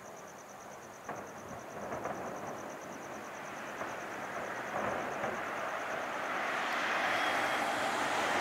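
Distant fireworks display: a couple of faint sharp bangs early on, over crickets chirping steadily in a fast pulse. From about halfway a rushing noise swells and grows louder to the end.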